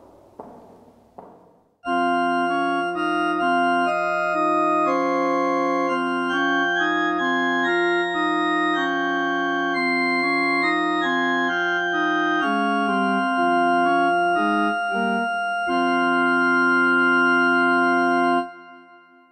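Church organ playing slow, held chords. It starts suddenly about two seconds in and stops shortly before the end, leaving a brief fading echo. A few faint clicks come before it begins.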